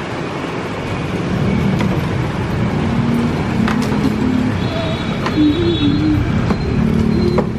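Motorbike and scooter engines running steadily among street traffic, a continuous low hum with no clear break.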